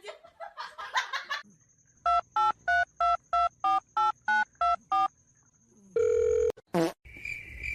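Telephone keypad dialing beeps: about eleven quick tones, roughly three a second, followed by a short steady tone and a brief sliding squeak near the end.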